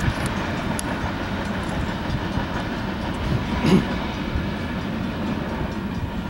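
Union Pacific freight train's boxcars rolling along the track, steel wheels rattling and clacking on the rails, with one sharper, louder clank a little past halfway through.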